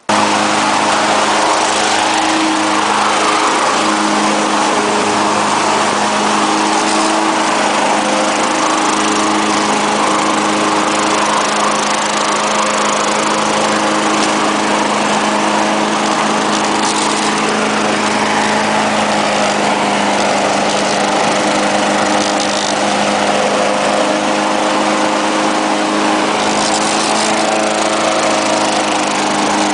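Lawn-Boy walk-behind lawn mower engine running steadily while mowing, a loud even drone with a constant pitch.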